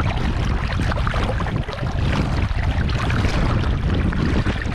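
Wind buffeting the microphone in a loud, steady low rumble, over the wash of sea water.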